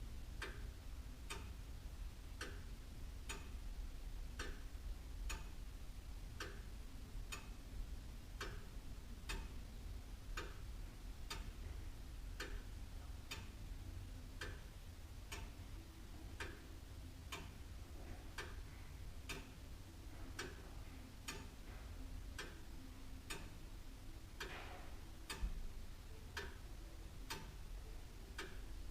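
An old William Holliwell Liverpool clock ticking steadily, about three ticks every two seconds, in an alternating tick-tock, over a low steady hum. One louder click stands out about three-quarters of the way through.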